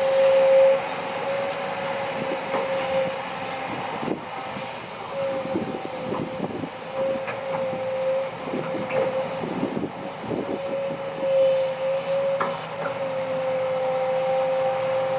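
Kobelco SK200-8 excavator working, its hydraulics giving a steady high whine that wavers slightly in pitch, with scattered knocks and clatter through the middle.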